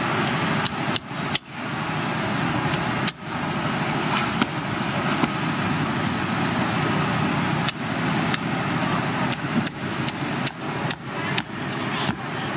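A steel cleaver chopping through an alligator gar behind the head, giving about a dozen sharp, irregular knocks that come faster in the second half, over a steady background of road traffic.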